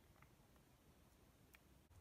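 Near silence, with two faint light ticks, about a quarter second in and about a second and a half in, as pieces of diced green bell pepper drop onto flour in a plastic bowl.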